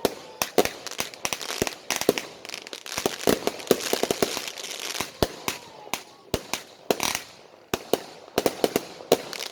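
Fireworks going off: a rapid, irregular string of sharp bangs and pops, with a stretch of dense crackling in the middle and a short fizzing hiss near the end.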